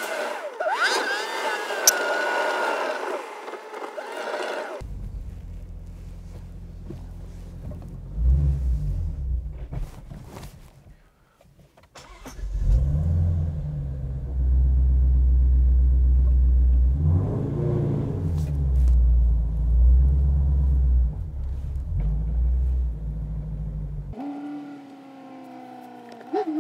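Shelby GT350's 5.2-litre flat-plane-crank V8 heard from inside the cabin while driving. For about the first five seconds it is a fuller sound with shifting pitch. After that only a deep, muffled rumble remains, swelling and easing, loudest from about thirteen to twenty-four seconds, and it stops shortly before the end.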